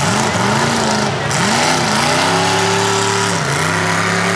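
Lifted 4x4 truck's engine revving as it drives through deep mud: pitch swings up and down a few times, then is held at high revs, with a short dip about three and a half seconds in.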